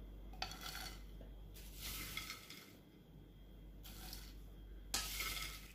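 Crisp fried pappadam pieces being spooned from the pan onto a ceramic plate: a few quiet, scraping, rustling sweeps of the spoon.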